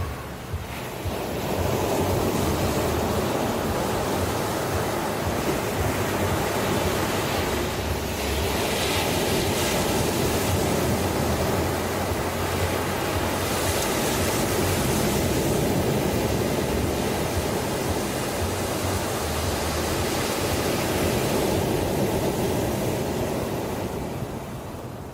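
Ocean waves breaking and washing on a shore: a continuous surf rush that swells about a second in and eases near the end, with brighter hissing washes partway through.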